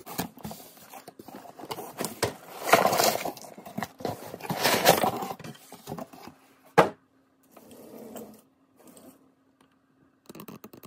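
A boxful of mixed costume jewelry (metal chains, beads, trinkets) being tipped out onto a cloth-covered surface: two rushes of jangling and clattering about three and five seconds in, then a single sharp knock.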